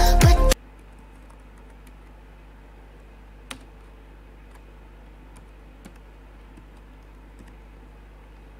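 Electronic music with a heavy beat cuts off about half a second in. Then come faint, scattered keystrokes on a computer keyboard, one a little louder near the middle, over a low steady background hiss.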